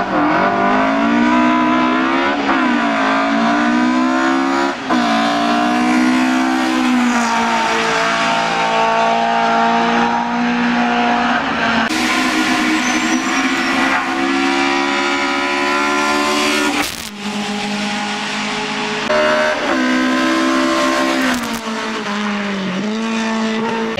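Racing saloon car's engine revving hard under full acceleration up a hill-climb course, its pitch climbing and then dropping sharply at each gear change, with a few abrupt breaks in the sound.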